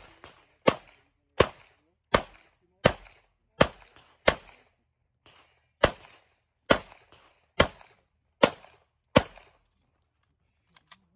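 About a dozen 9mm pistol shots from a Tanfoglio Stock 2, fired at an even pace of roughly one every 0.7 s, with one longer pause midway through the string. Two faint clicks follow the last shot near the end.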